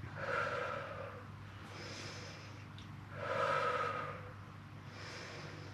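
A woman's breathing in time with a resistance-band leg push: a loud exhale at the start and another about three seconds in, each on the push, each followed by a quieter, hissier inhale.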